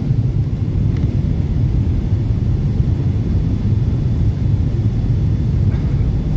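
Steady low rumble of a jet airliner's cabin noise, heard at a window seat over the wing during the descent.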